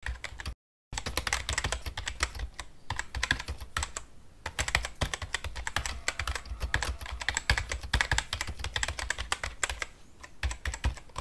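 Computer keyboard typing: a fast, uneven run of key clicks, with a brief break just under a second in and one louder click near the end.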